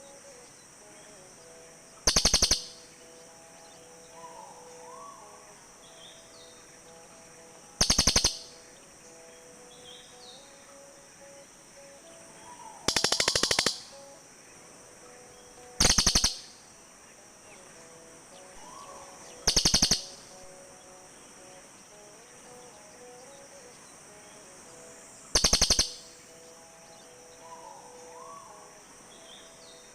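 Cililin bird calling: six short, high, rapid trills of about half a second each, a few seconds apart. Faint chirps and a steady high hiss run underneath.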